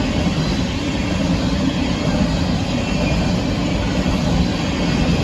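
Union Pacific grain train's freight cars rolling past a grade crossing: a steady rumble of steel wheels on the rails.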